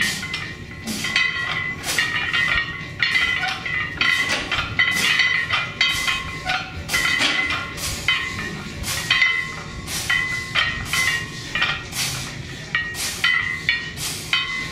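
Background music with a steady beat: sharp percussion hits about twice a second over held synth notes.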